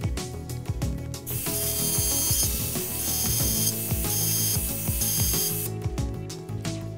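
Mini mill's end mill cutting into a block of aluminium, taking heavy roughing cuts. Rapid rattly clicking at first; from about a second in until near six seconds it becomes a dense, loud hiss of the cut, then turns to clicking again.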